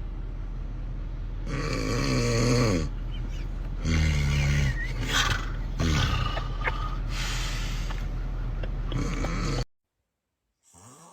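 Loud snoring: several long, rough snores, the first falling in pitch, with noisy breathing between them over a steady low hum. It cuts off abruptly about a second before the end.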